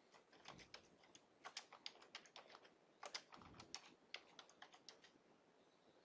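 Faint typing on a computer keyboard: a quick, uneven run of keystroke clicks with one duller thud about three seconds in, stopping about five seconds in.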